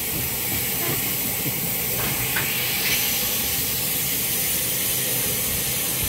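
Steady hiss of escaping steam from Southern Railway Battle of Britain class Pacific No. 34070 Manston as it departs, with steam blowing out low around the cylinders.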